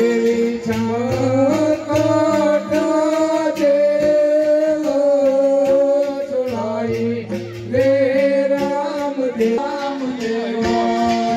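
Gujarati devotional Ramamandal music: a voice singing long phrases that bend in pitch over steady, held instrumental notes.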